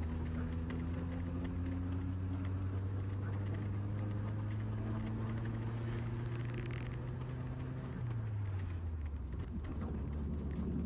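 Car engine running as the vehicle drives over a rough dirt road, with road noise. The engine note creeps slowly up, then drops about eight seconds in.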